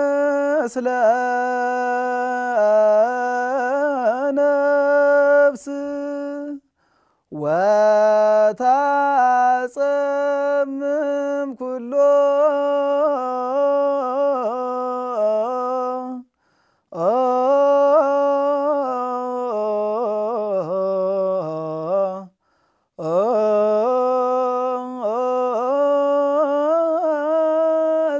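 A single unaccompanied voice sings a slow, ornamented melody, with slides and turns between notes. It comes in four long phrases with brief pauses between them.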